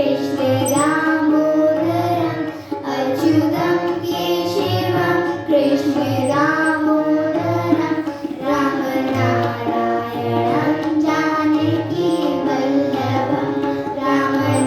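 Children singing a devotional Hindu song together over music with tabla drumming.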